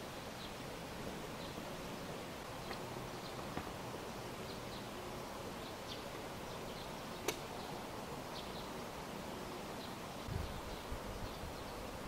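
Rural outdoor ambience: a steady hiss with scattered faint high chirps. A single sharp click comes about seven seconds in, and low thuds start near the end.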